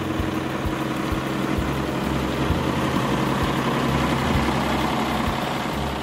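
Truck engine idling: a steady low hum with a noisy hiss over it.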